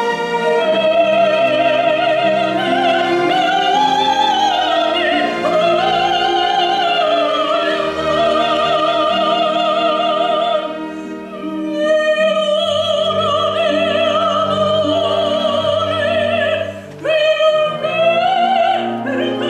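Operatic soprano singing long, high phrases with wide vibrato over a string orchestra accompaniment, with short breaks between phrases about eleven and seventeen seconds in.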